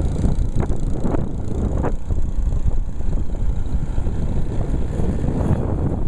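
Gas-powered snowblower engine running steadily while throwing snow.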